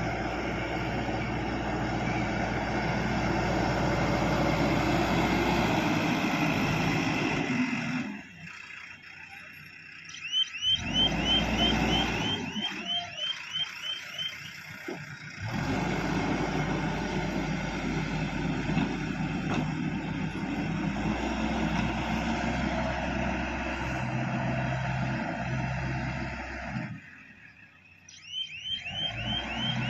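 JCB excavator's diesel engine running steadily under work, cut off abruptly a few times. Twice there is a rapid chirping electronic alarm, about four short rising chirps a second.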